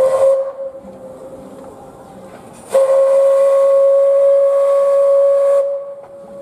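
Steam whistle of a small steam locomotive: the end of a short blast, then a long steady blast of about three seconds, one clear tone with steam hiss.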